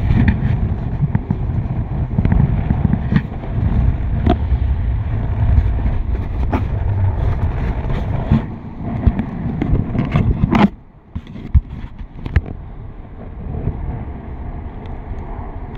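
Wind buffeting the microphone during a parasail ride, a heavy low rumble with scattered knocks and pops. It cuts out briefly about eleven seconds in, then comes back weaker.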